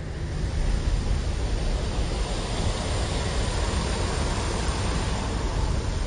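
Road and wind noise of a moving car heard from inside it: a steady rushing hiss over a fluttering low rumble.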